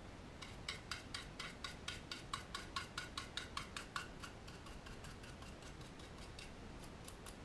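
Nearly dry paintbrush worked in quick short strokes, its bristles giving a rapid run of light scratchy ticks, about five a second. The ticks ease off after about four seconds and pick up again near the end.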